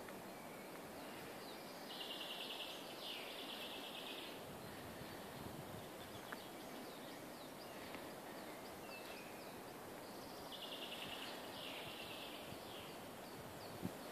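A small songbird singing a fast trill in two parts of about a second each, heard twice roughly eight seconds apart, with faint short chirps between, over a steady outdoor hiss.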